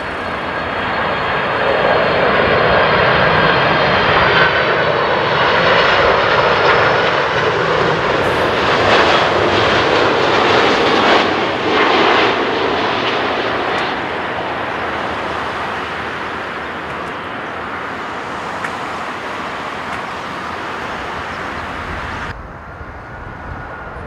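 Twin jet engines of an ANA Boeing 767-300ER on landing approach, passing close by. The roar builds and is loudest during the pass, with a high engine whine that falls in pitch as it goes by, then fades. Near the end the sound drops suddenly to a quieter jet noise.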